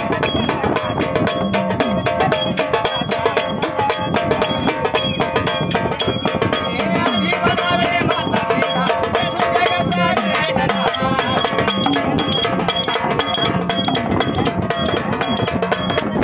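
Marathi folk devotional song (Parasrami): a woman singing over drum and jingling percussion that keeps a fast, steady beat.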